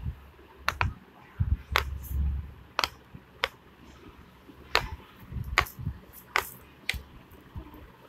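Silicone pop-it fidget toy's bubbles being pressed by fingers: about a dozen short, irregular pops, some with a dull low thump underneath.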